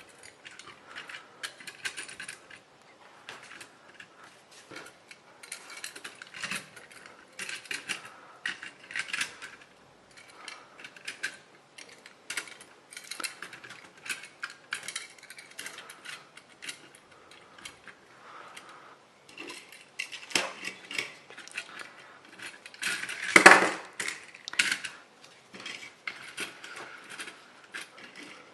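Toy cars and toy trucks being handled and moved about: irregular clicks and clatters of small toy parts knocking together, with one louder clack late on.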